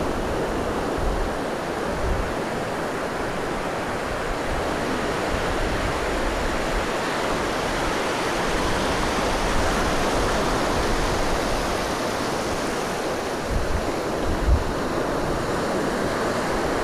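Ocean surf breaking on a sandy beach: a steady rushing wash of waves. A few low bumps of wind on the microphone come about a second and two seconds in, and again near the end.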